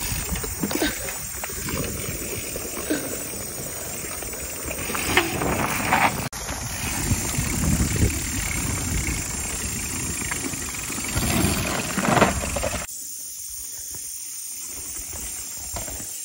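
Mountain bikes rolling over dirt trail as riders pass close by, tyres rumbling on the ground. The noise surges to its loudest about five and twelve seconds in, then drops to a quieter steady hiss near the end.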